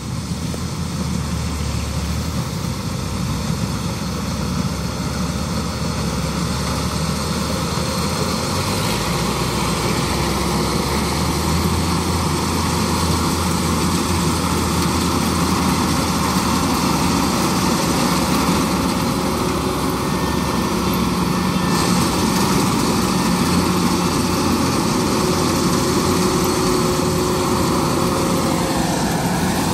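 Kubota DC-93 rice combine harvester running steadily under load while cutting and threshing rice, its engine note dipping slightly near the end.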